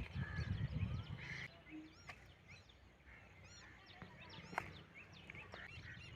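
Birds calling: many short, high chirps and arching calls, with a low rumble for the first second and a half.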